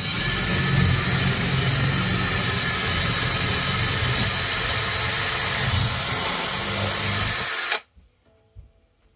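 Craftsman cordless drill running steadily at full speed, drilling a pilot hole up through an RV's ceiling and roof. It stops suddenly near the end.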